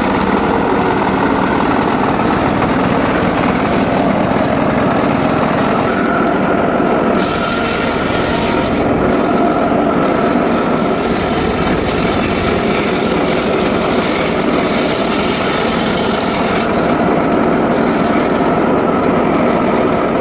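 Home-built circular saw running loud and steady while sawing sengon laut timber, a higher-pitched whine joining in briefly about 7 seconds in and again for about six seconds from around 10 seconds in as the blade cuts.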